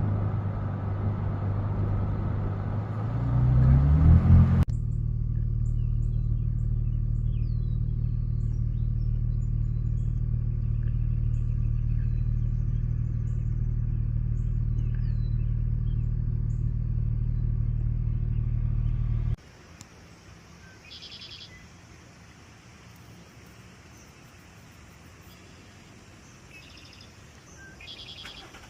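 A vehicle engine running, rising in pitch about three seconds in as it speeds up, then a steady low engine hum with birds chirping faintly over it. About nineteen seconds in, the engine sound cuts off abruptly, leaving quiet outdoor air with scattered bird calls.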